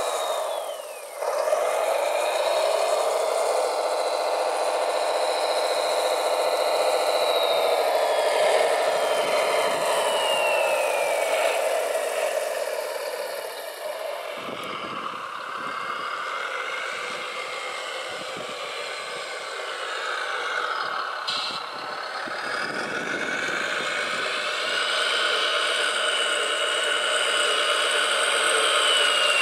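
Electric drive motors and hydraulic pumps of radio-controlled model construction machines whining as they work, the pitch sliding down and up as the motors change speed, with a brief drop about a second in.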